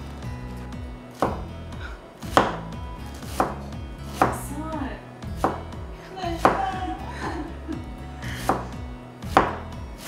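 Chef's knife shredding cabbage on a plastic cutting board: slow, even strokes about one a second, each ending in a sharp knock of the blade on the board.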